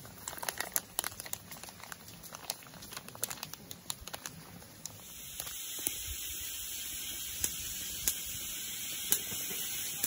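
Foil sachet of instant soup crinkling as it is torn and emptied into a pot, a run of small crackles and ticks. After about five seconds a steady hiss takes over, with a few sharp pops, as the soup heats on the camp stove.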